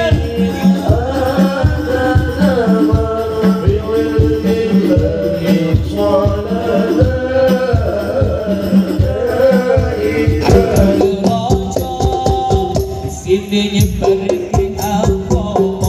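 Live devotional music amplified through a PA system: a chant-like sung melody with gliding notes over a steady hand-drum beat, changing to more held notes about ten seconds in.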